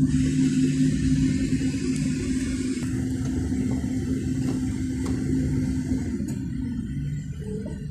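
Engine and road noise from a moving vehicle: a steady low drone that eases off somewhat near the end.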